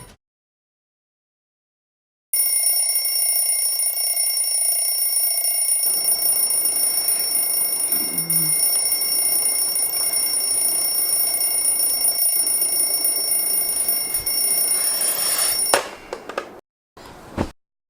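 An alarm clock ringing steadily for about thirteen seconds, starting after a couple of seconds of dead silence and cutting off suddenly. A few short, faint sounds follow.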